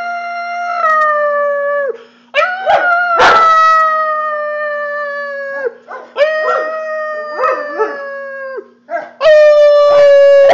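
Bernese Mountain Dog howling: a run of four long, high howls, each sliding slowly lower in pitch, separated by short pauses.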